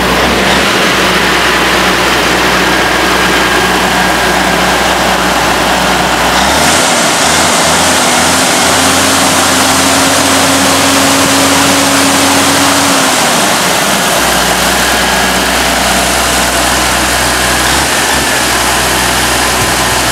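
The diesel engine of a 1986 Ford LTL 9000 dump truck, a yellow Caterpillar, running at idle. About a third of the way in it speeds up and holds a higher, steady pitch, then drops back to idle about two-thirds of the way through.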